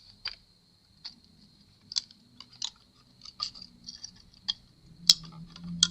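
Scattered light clicks and taps, one or two a second, from small tools and parts being handled on a repair bench, with a sharper click about five seconds in. A faint steady high whine sits underneath.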